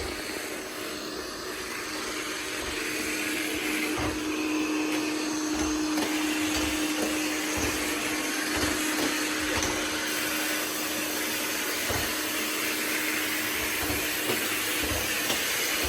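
Robot vacuum running with a steady motor hum and suction noise.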